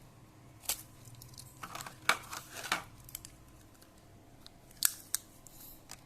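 Small plastic and metal clicks and brief scrapes from handling laptop parts: one click, then a quick cluster of clicks and rustling about two seconds in, then two more clicks near the end.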